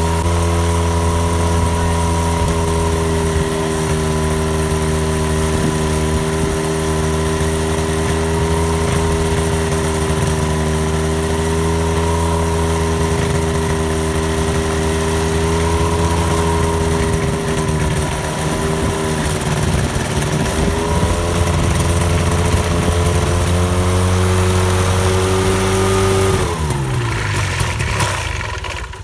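Ultralight aircraft engine running steadily with its propeller turning during a ground run-up, its pitch wavering a little in the middle. Near the end it is shut off and winds down, falling in pitch until it stops.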